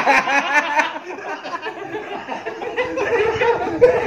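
Several men laughing heartily together, loudest in the first second and carrying on in short bursts.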